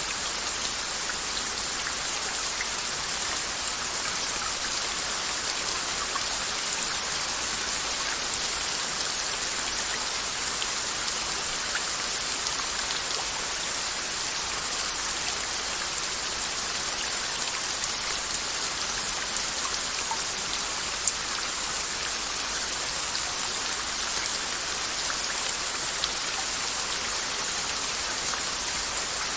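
Steady rain falling, an even hiss with individual drops ticking sharply now and then, two louder ticks past the middle.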